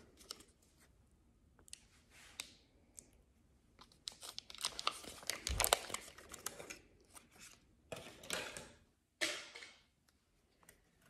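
A foil suture packet being torn open and crinkled in the hands: a run of crackling, rustling tears, loudest about halfway through, then two shorter crinkles near the end.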